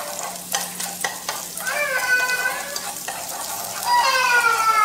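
Minced fresh turmeric sizzling in hot oil in a nonstick frying pan, stirred with a utensil that clicks and scrapes against the pan. A short pitched call rises over the sizzle twice, about two seconds in and again near the end.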